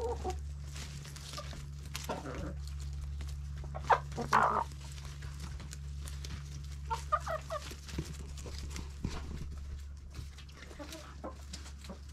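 A flock of backyard hens clucking now and then while pecking at a pile of fresh greens, with quick ticks of beaks and leaves, over a steady low hum.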